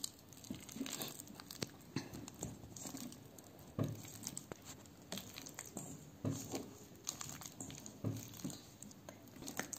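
A bare hand squeezing and mashing ripe Mysore bananas in a stainless steel bowl: faint, irregular squishing with small clicks, and a few louder squishes about two seconds apart.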